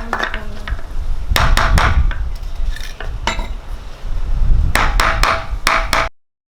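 Hard knocks and taps in several quick clusters over a low handling rumble, as parts are worked on and pressed into place. The sound cuts off suddenly about six seconds in.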